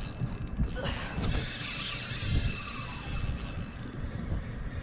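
Spinning reel being cranked under load from a hooked fish, its gears and bail working as line comes in on the bent rod.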